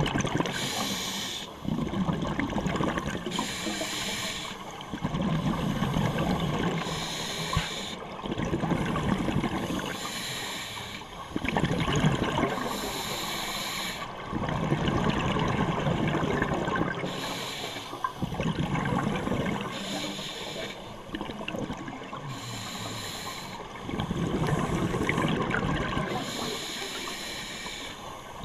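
Scuba diver breathing through a regulator underwater: a hissing inhalation alternating with a burst of bubbling exhaust bubbles, one breath about every three to four seconds.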